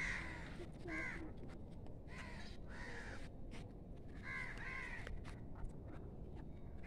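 Crows cawing, about six harsh short caws spaced a second or so apart, some in pairs.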